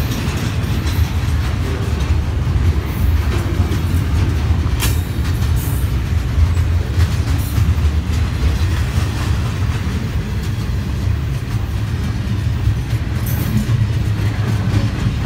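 Double-stack container freight train rolling past close by: a loud, steady low rumble of the well cars on the rails, with a few scattered sharp clicks.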